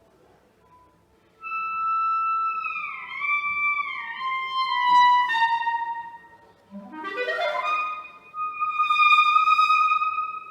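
A clarinet playing solo: a held high note that slides down in small steps, then a fast rising sweep from its low register up to a held high note.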